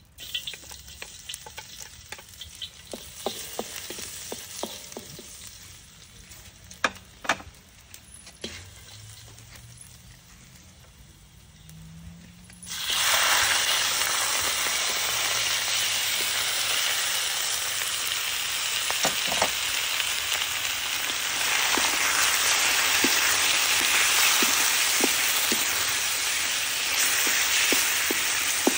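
Wooden spatula clicking and scraping in a steel wok over low background frying, then about halfway through a sudden loud sizzle as raw chicken pieces go into the hot oil. The sizzle then runs on steadily, with the spatula clicking against the wok.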